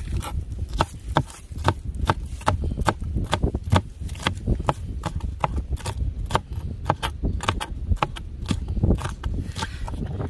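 Sharp knife strokes in a quick, fairly even rhythm, about three to four a second, over a low background rumble.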